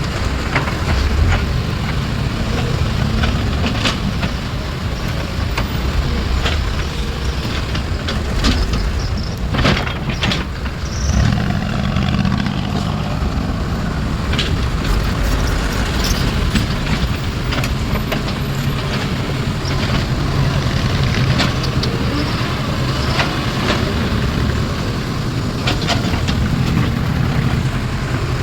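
Heavy diesel engines of a Hitachi excavator and dump trucks running steadily, with scattered clanks and knocks of metal.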